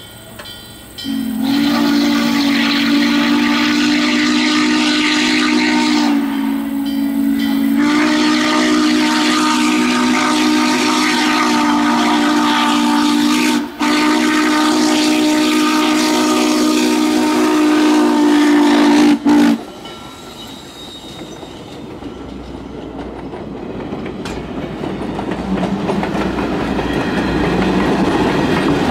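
Steam locomotive's chime whistle sounding in long blasts, several tones at once, with a short dip about six seconds in and cutting off about twenty seconds in. The train's rumble and wheel clatter then grow as the coaches roll past.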